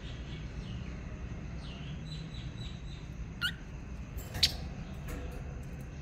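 Pet lovebirds calling: soft twittering chirps, then a louder rising chirp about three and a half seconds in and a sharp, loud call a second later. A steady low rumble runs underneath.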